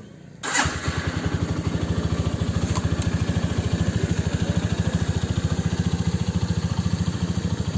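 Single-cylinder engine of a Honda Megapro Primus motorcycle idling steadily with even firing pulses, coming in suddenly about half a second in. This is presumably the rebuilt engine running after its broken exhaust valve had wrecked the piston.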